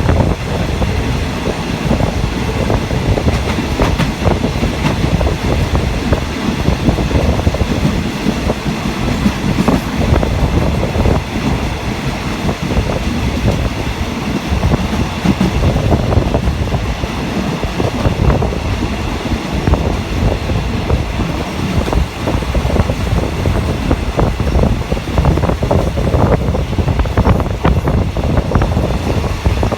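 Passenger train under way, heard riding along: a steady loud rumble of the carriage with the clickety-clack of wheels over rail joints.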